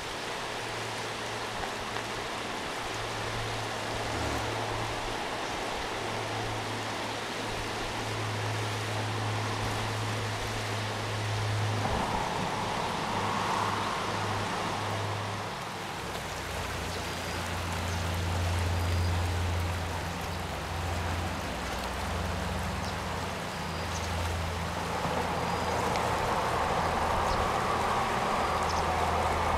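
River Spey flowing over shallow, broken riffles: a steady rush of water, with a low steady hum underneath that shifts in pitch about halfway through.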